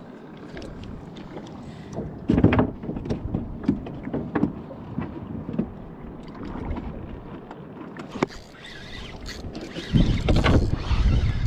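Water lapping against a small boat's hull, with scattered clicks and knocks from handling the fishing rod and reel. Gusts of wind on the microphone come briefly about two seconds in and again near the end.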